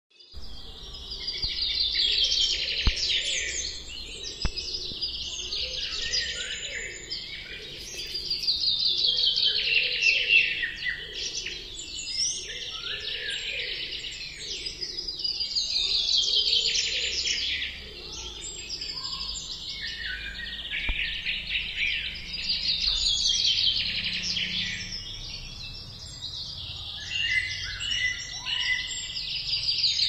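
A dense chorus of many birds chirping and chattering together as they gather in trees at dusk, swelling and fading in waves every six or seven seconds.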